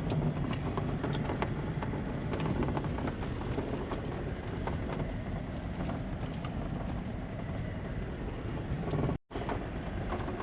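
A vehicle driving at steady speed: a constant rumble of road and engine noise with faint scattered rattles.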